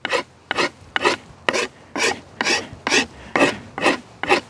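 Four-in-hand rasp filing a peeled wooden hiking-staff pole in rhythmic strokes, about two a second, taking down a curved section of the shaft to straighten and smooth it.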